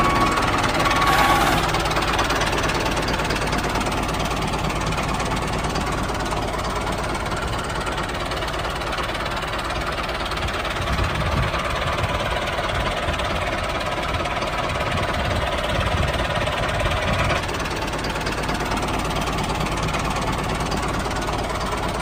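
Tractor engine running steadily, with an even low throb.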